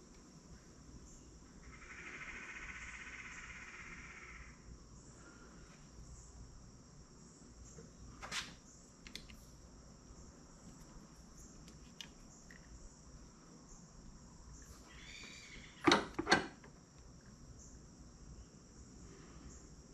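Hand work on a CV boot clamp: a short scraping noise early on, a click, and two sharp clicks in quick succession about sixteen seconds in, over a steady faint high-pitched chirring.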